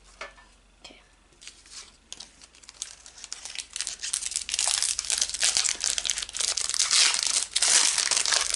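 Foil wrapper of a Pokémon booster pack crinkling as it is handled and torn open: a few light clicks at first, then dense crinkling from about three seconds in that grows loud.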